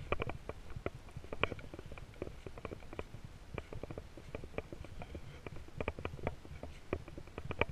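Footsteps shuffling and crunching through a thick layer of fallen leaves: a run of irregular crackles over a steady low rumble.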